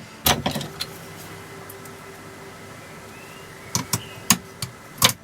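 Metal parts of a hydraulic trolley jack being handled and fitted during reassembly: a few sharp clinks and knocks, two near the start and a cluster near the end, with a quieter stretch between.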